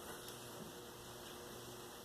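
Faint steady hiss with a low electrical hum: room tone, with no distinct handling sounds.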